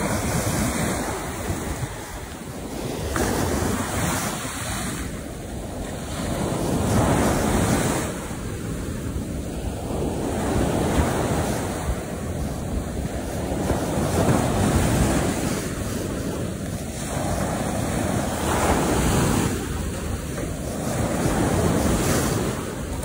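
Ocean surf breaking on a sandy beach, the wash of the waves rising and falling every few seconds.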